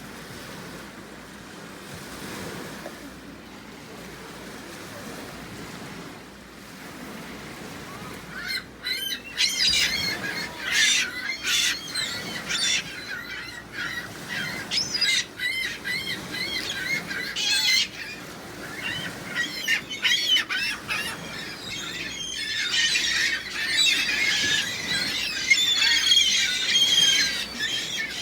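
A steady rushing background gives way, about eight seconds in, to a flock of gulls calling: many short, high squawks and squeals overlapping, growing denser and louder toward the end.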